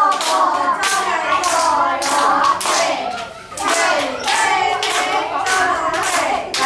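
A group of young children and a woman singing together, with hands clapping in time about twice a second.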